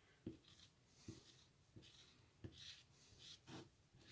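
Plastic squeegee scraping paste across a stencil on wood in a series of short, faint strokes, about two a second, each with a soft knock as it lands.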